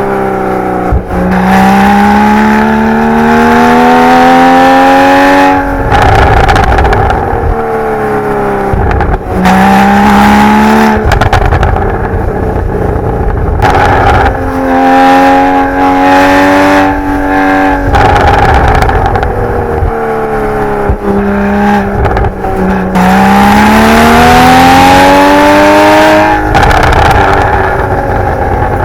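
Porsche 981 Boxster GTS's naturally aspirated 3.4-litre flat-six, heard through its stock sport exhaust in Sport Plus, revving hard through the gears. The pitch climbs again and again and drops suddenly at each gear change, with a few stretches of falling pitch as the car slows between pulls.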